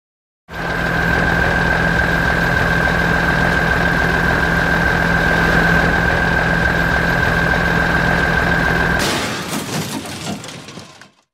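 Cartoon sound effect of a big mining dump truck's engine running steadily, with a constant high whine over a low hum. About nine seconds in it breaks into a crash and clatter that fades away over two seconds, as the truck is damaged.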